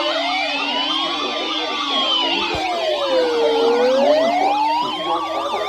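Several sirens sounding at once: slow wails rising and falling over a few seconds, layered with fast yelping sirens sweeping up and down several times a second.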